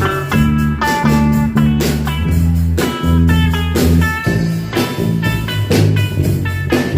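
Band music: guitar over a strong bass line and a drum kit, with regular cymbal and drum hits keeping the beat.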